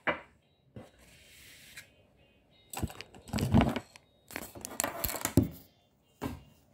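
Plastic take-out food packaging being handled on a table: a run of irregular rustling, crinkling and scraping noises through the middle of the stretch, after a single short click at the start.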